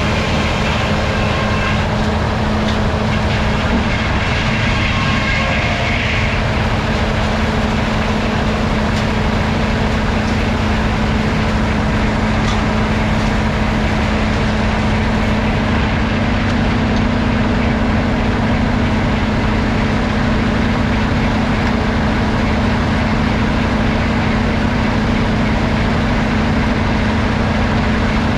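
Sawmill machinery running steadily: a loud engine-driven rumble, with a constant hum that settles in about four seconds in.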